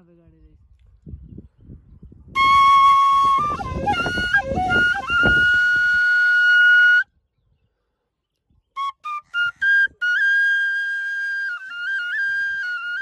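Side-blown metal flute played solo. A couple of seconds in, a note slides up into a long held tone, then after a short pause come a few short notes and an ornamented melody that keeps returning to one held high note. A low rumble sits under the first phrase.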